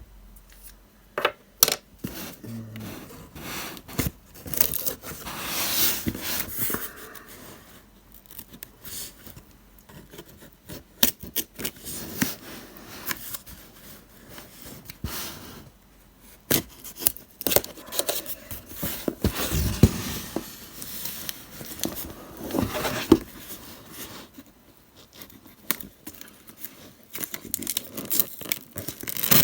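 Cardboard parcel being opened by hand: packing tape cut and torn, cardboard scraping and rustling, with many sharp clicks and knocks and a few longer tearing swishes.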